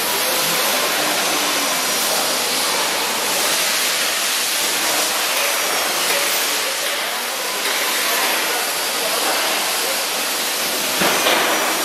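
Door packaging machine line and factory machinery running with a loud, steady hiss, with a couple of brief knocks near the end.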